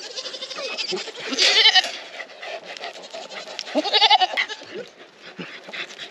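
Goats bleating, several calls with two loud, quavering bleats about one and a half and four seconds in.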